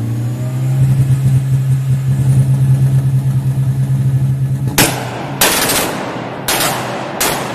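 Mk4 Volkswagen Golf's engine held at steady raised revs, then let drop while the exhaust fires a string of about five sharp, loud bangs, the first about five seconds in. The bangs echo off the concrete of a multi-storey car park.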